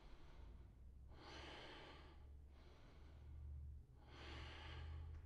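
Faint, slow breathing of a man holding a lunge: two long breaths about a second each, one about a second in and one near the end, over a low steady hum.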